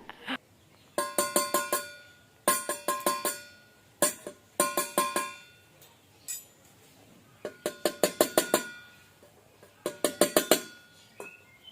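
Quick bursts of rapid ringing strikes, like a small bell being shaken. There are about six bursts of half a dozen strokes each, with short pauses between.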